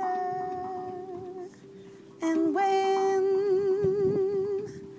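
A woman sings long wordless notes with vibrato: one at the start that fades after about a second and a half, then another from about two seconds in. Under them a hand-played Kaa Tone Drum steel drum rings with sustained tones.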